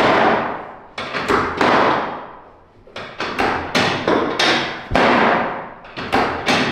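Chiropractic drop table's pelvic drop section clunking down again and again as the chiropractor thrusts on the pelvis, a dozen or so sharp knocks at uneven spacing, each dying away quickly. It is a drop-table adjustment to correct a pelvic misalignment.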